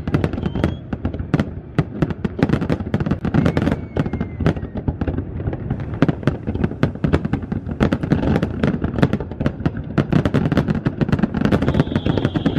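Fireworks display: a dense, rapid string of bangs and crackling from aerial shells bursting, with a faint rising whistle here and there.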